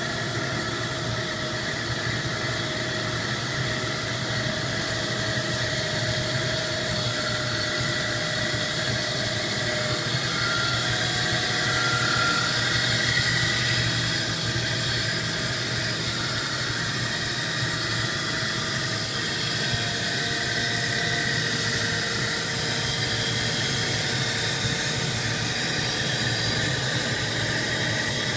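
CNC rim lathe machining a wheel rim: a steady mechanical whir with several held whining tones, a little louder about twelve to fourteen seconds in.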